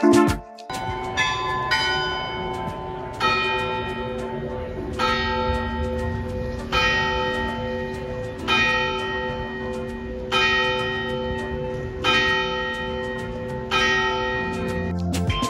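A large tower bell tolling, struck about every two seconds, its deep hum ringing on between strokes. A few quicker strokes come in the first couple of seconds.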